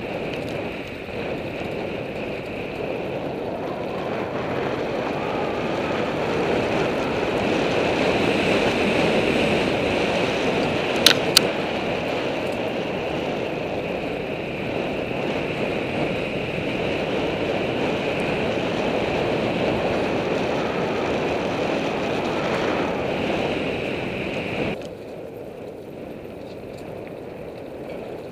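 Mountain bike being ridden along a dirt singletrack, heard from a camera on the bike or rider: a steady rush of wind over the microphone and tyre noise on the dirt. Two sharp clicks come close together about eleven seconds in, and the noise drops suddenly about three seconds before the end.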